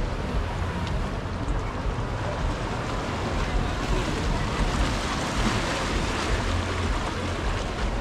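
Ocean surf washing onto a beach, with a wave surging up louder about halfway through and wind rumbling on the microphone.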